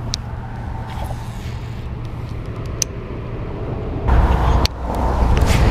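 Steady low outdoor rumble with a few sharp clicks. About four seconds in, the rumble grows louder and stays that way.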